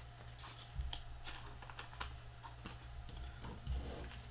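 Trading cards being handled and flipped through by hand: light, irregular clicks and taps, a few a second.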